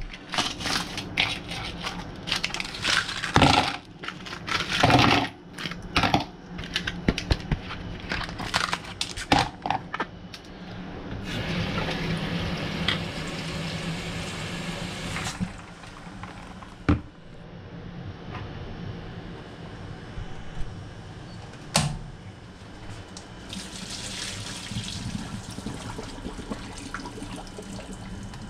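About ten seconds of hard, clattering knocks, then a kitchen tap running water into a plastic bowl of ice cubes for about four seconds. Later come two single sharp knocks and another softer stretch of running water.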